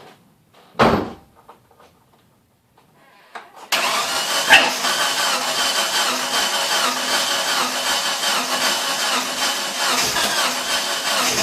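A DSM's engine cranking on the starter motor from about four seconds in, turning over steadily and rhythmically without catching: it runs on E85 ethanol and won't start. A brief loud burst comes about a second in.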